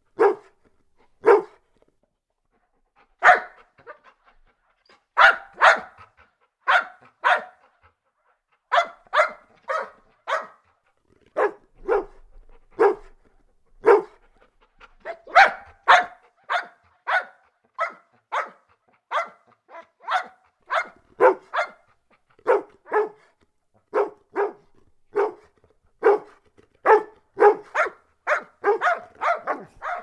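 Golden retriever barking over and over: short, sharp barks, singly and in quick runs of two to four, with brief pauses between. The barks come thicker and faster near the end.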